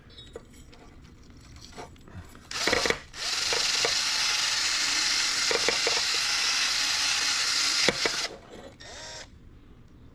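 Electric drill spinning a small stainless wire brush inside a water pump's shaft bore, scrubbing out leftover silicone: a short burst about two and a half seconds in, a steady run of about five seconds, then a brief burst near the end.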